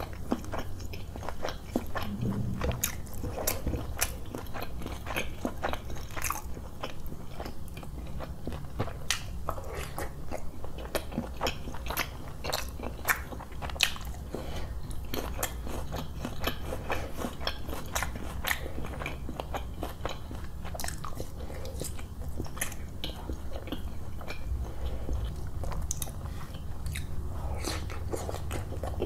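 Close-miked chewing of mouthfuls of roti soaked in chicken curry, eaten by hand: a steady run of sharp mouth clicks.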